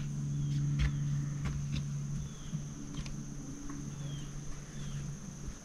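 Summer forest ambience: a steady high-pitched insect drone, with a few short chirps falling in pitch from birds, over a steady low hum.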